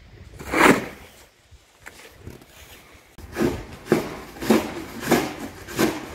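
Yellow plastic snow shovel scraping hardened, icy snow off the pavement. There is one loud scrape under a second in, then from the middle on a run of short scrapes about two a second.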